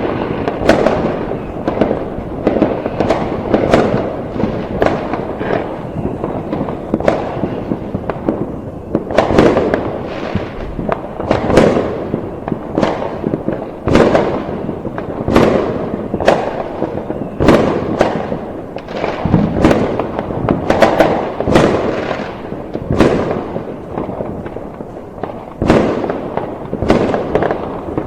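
Fireworks going off continuously: many sharp bangs, often several a second, over a steady rumble and crackle of distant explosions.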